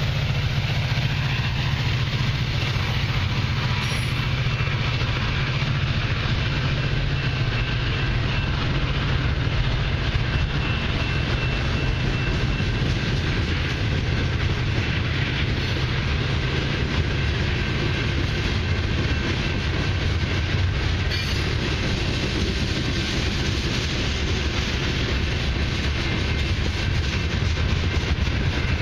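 Long mixed freight train of autoracks, covered hoppers and boxcars passing at speed: a steady rumble with the clatter of the cars' wheels over the rail joints.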